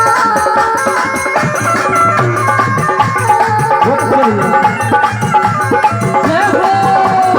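Instrumental interlude of a devotional bhajan: hand drums play a fast, even rhythm under a melody line that bends and glides in pitch.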